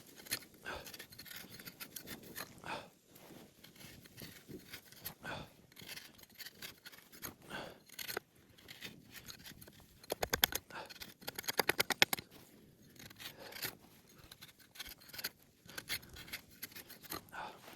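Rustling and small clicks of food and gear being handled from a bag. About ten seconds in there is a quick, even run of clicks lasting a couple of seconds, the loudest sound here.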